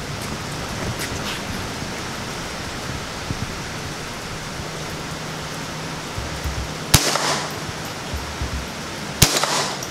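Two shots from a Ruger 10/22 .22 LR semi-automatic rifle, about two and a half seconds apart, each a sharp crack with a short echo, over a steady hiss.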